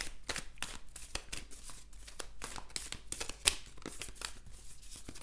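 Tarot cards being shuffled by hand: a quick, irregular run of soft card clicks and rustles, with one louder click about three and a half seconds in.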